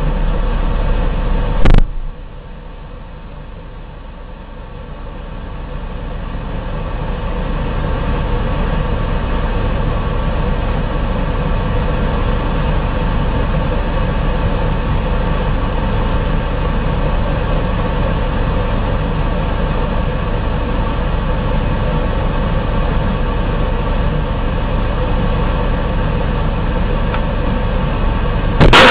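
A military vehicle's engine runs steadily with a deep, even hum. About two seconds in there is a sharp knock, after which the engine sound drops and builds back up over several seconds, and a sudden loud bang comes right at the end.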